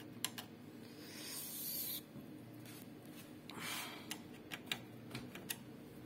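Screwdriver turning out the mounting screws of an HP LaserJet P1005's main circuit board, metal scraping on metal: two brief rasping rubs, about one second and three and a half seconds in, among scattered light clicks.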